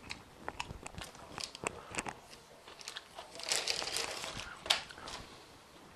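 Soft plastic tortilla packet crinkling as a tortilla is pulled out of it, mostly about halfway through. Before it, light scattered clicks and taps of food being handled on the kitchen bench.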